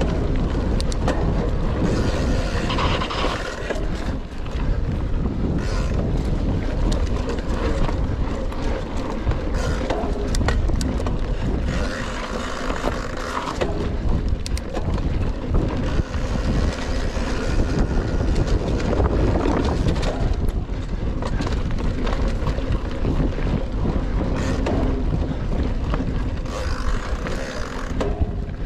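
Rockrider XC 900 mountain bike ridden fast over a forest trail, heard through a GoPro's microphone: steady wind rumble on the microphone and tyre noise on dirt, broken by many short rattles and knocks as the bike goes over bumps.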